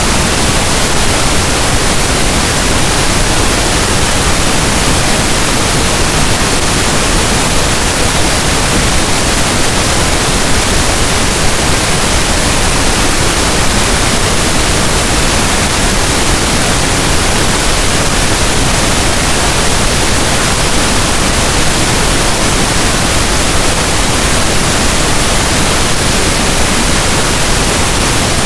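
Steady synthesized pink noise: an even, unbroken hiss across the whole range, loud and unchanging.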